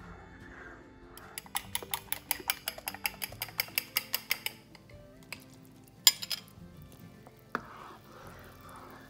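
A kitchen utensil clicking rapidly against cookware, about six taps a second for some three seconds, followed by a couple of sharper single knocks, over soft background music.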